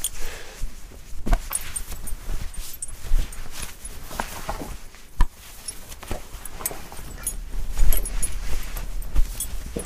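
Clothes rustling and being handled as someone changes into a smock, with scattered clicks and a few sharp knocks.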